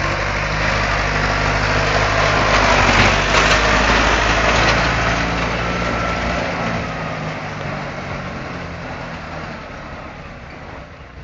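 Nuffield 460 tractor engine running as the tractor drives past close by. It is loudest about three seconds in, then fades steadily as the tractor pulls away.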